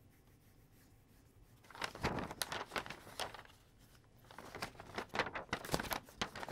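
Sheets of animation paper rustling and crinkling as they are handled and flipped, in two bouts starting about two seconds in, after a moment of faint room tone.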